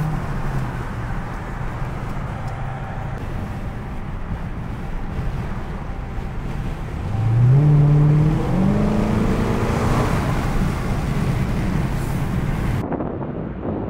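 Dodge Charger engine and road noise heard from inside the cabin, cruising steadily. About seven seconds in it accelerates hard, the engine note climbing in pitch and staying up for a few seconds. The sound cuts off near the end.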